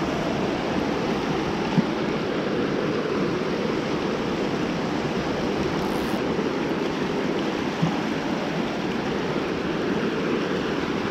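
Steady rush of a shallow, rocky mountain trout stream running over riffles, with a couple of faint clicks, about 2 s and 8 s in.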